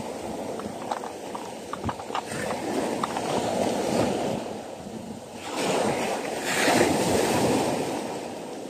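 Surf washing up onto a sand beach, with wind buffeting the microphone. The wash swells louder about five and a half seconds in as a wave runs up the shore, then eases off.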